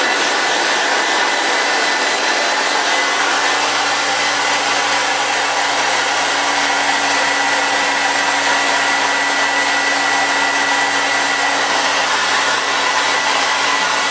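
Electric hair dryer running steadily, a loud even rush of blown air with a thin high whine over it.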